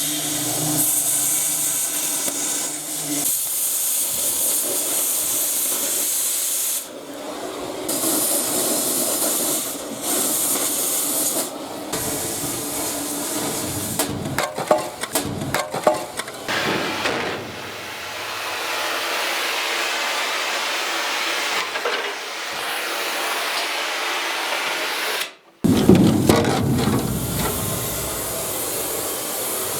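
Oxy-acetylene cutting torch hissing steadily as it cuts through steel hull plate, with a few short breaks.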